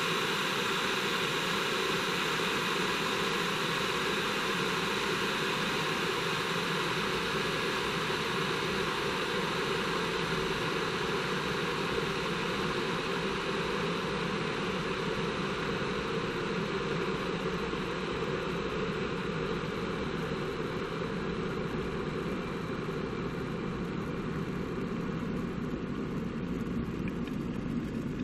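Electric water boiler heating water: a steady rushing noise. Its high hiss thins out from about halfway through while the low rumble grows.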